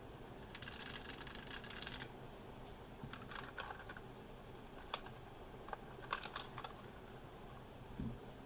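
Typing on a Royal Kludge RK71 mechanical keyboard with brown switches: short bursts of rapid key clicks, with a few single keystrokes between them, and a soft low thud near the end.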